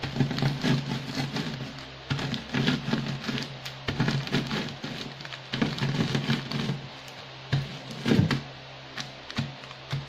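SkyFlakes crackers crunching and their plastic wrapper crinkling as they are pressed and crushed inside the sealed pack, in irregular bursts. Music plays underneath.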